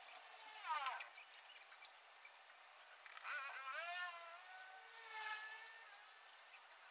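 Faint animal calls in the background: a short falling call a little under a second in, then a longer call of several rising and level parts from about three seconds in.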